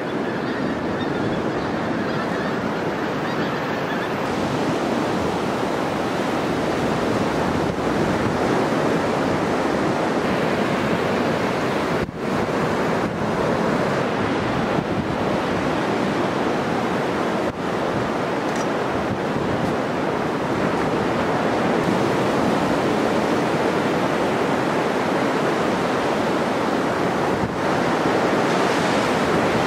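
Sea surf breaking and washing up a beach: a steady rushing of waves with no pause.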